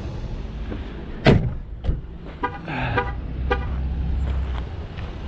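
Jeep engine running with a steady low rumble, a sharp knock about a second in and a few lighter clicks, plus a few brief pitched tones near the middle.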